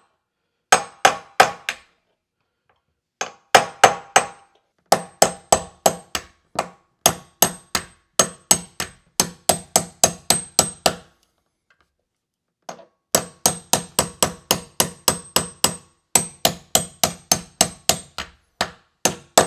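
Hammer tapping a punch against a steel door-hinge pin to drive it up out of the hinge. The strikes are sharp and ringing and come in runs of about three or four a second, with two short pauses.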